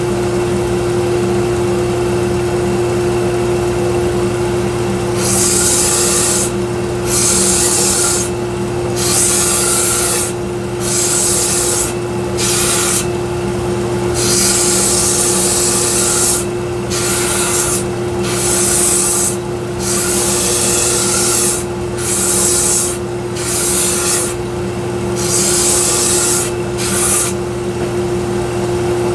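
A 1x42 belt sander running steadily. From about five seconds in, wood is pressed against the moving belt in repeated grinding passes of a second or two each, with short pauses between them, as the axe handle is shaped to fit the head.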